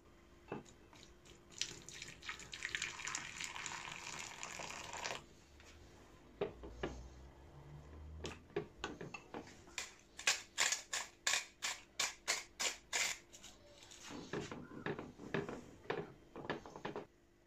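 Water poured into a ceramic bowl onto tomato paste, then a wooden spoon stirring the paste into sauce, clicking and scraping against the bowl about three times a second.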